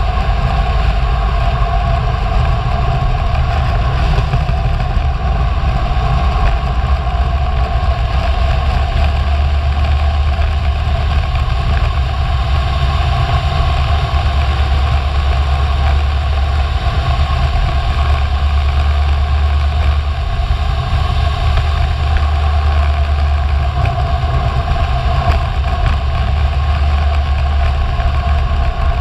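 Wind buffeting the camera microphone on a fast road-bicycle descent: a loud, steady low rumble with a constant hum above it.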